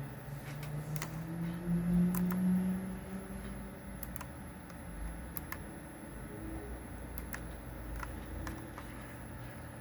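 Western Digital Black hard drives' read heads seeking while reading files, giving irregular, scattered clicks and ticks, the raspy seek noise the owner asks about. A low engine hum from traffic outside rises in pitch and is loudest about two seconds in.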